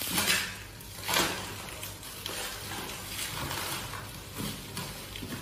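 Crinkly rustling of shredded plastic packing material being pulled off a wrapped trophy by hand, with two louder rustles in the first second or so, then lighter crackling.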